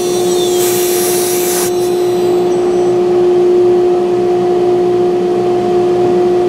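ShopBot CNC router spindle running at a steady speed, a constant high whine over a rushing hiss, with a brief burst of sharper hiss about a second in.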